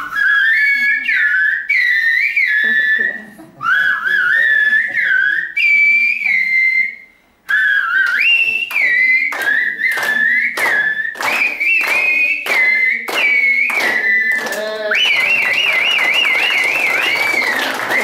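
Silbo Gomero, the whistled language of La Gomera: two women whistling to each other with fingers in their mouths, in short phrases of piercing tones that glide up and down. A fast warbling trill comes near the end.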